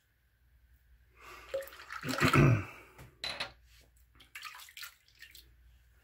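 Water running and splashing at a bathroom sink, loudest about two seconds in, followed by several short splashes as water is splashed onto the face during a wet shave.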